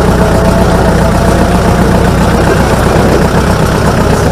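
Vehicle engine running steadily at a constant pace, heard close up from on board while driving slowly.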